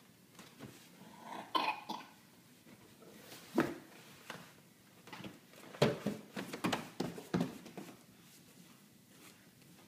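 A toddler crawling through a cardboard box on a hardwood floor: a few short, sudden knocks and bumps, with a run of them about six to seven and a half seconds in.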